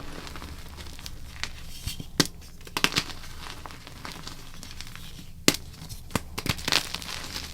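Blocks of gym chalk being crushed and crumbled, giving irregular sharp crunches and snaps in clusters, the loudest about five and a half seconds in, over a faint low hum.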